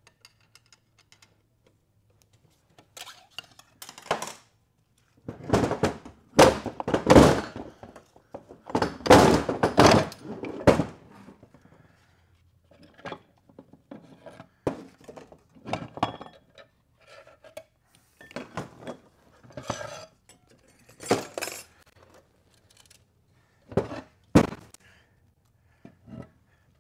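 Metal automatic-transmission parts and case clanking, knocking and clinking against a steel workbench as the transmission is taken apart by hand. The strikes are irregular, with a dense, loud cluster of clatter about a quarter of the way in, then scattered single knocks and clinks.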